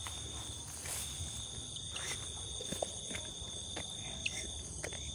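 Night insects trilling steadily at a high pitch, with scattered small clicks and rustles of plants being brushed at the water's edge.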